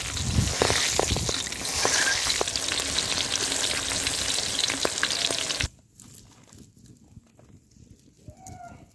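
Whole green chillies sizzling in hot oil in an iron kadhai, with the oil spattering in many small pops. The frying sound cuts off abruptly about two-thirds of the way through, leaving only a faint background.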